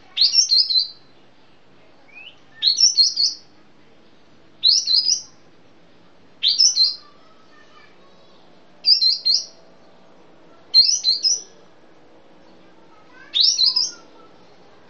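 A kapas tembak bulbul (Sumatran type) singing seven short, high, chattering phrases, one about every two seconds.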